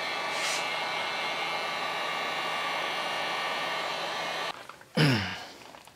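Electric heat gun blowing steadily, a fan hiss with a faint motor whine, drying rinsed steel tools; it is switched off about four and a half seconds in.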